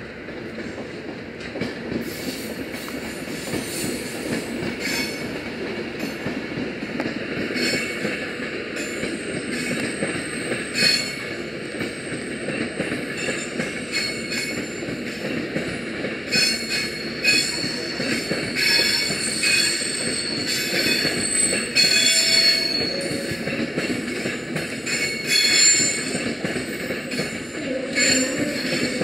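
Rail head treatment train of tank wagons rolling slowly through curved pointwork, its wheels squealing on and off in high thin tones. Clicks from the wheels and a low steady rumble run underneath.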